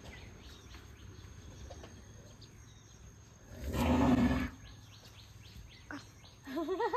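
Outdoor ambience with faint, rapidly repeated bird chirps. About four seconds in there is a brief, louder rustling noise, and near the end a wavering, voice-like call begins.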